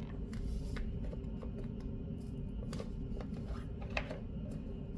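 Faint handling sounds of adhesive foam strip and a plastic trim panel being worked by hand: scattered light clicks and rustles over a steady low hum, the sharpest click about four seconds in.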